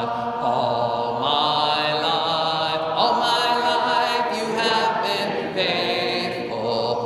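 Church congregation singing a hymn a cappella, many voices together holding long sustained notes, with no instruments.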